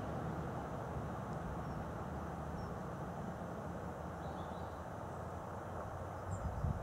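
Distant BR Britannia-class Pacific steam locomotive 70013 working hard at speed, heard across the valley as a steady low rumble. A few faint bird chirps sound over it.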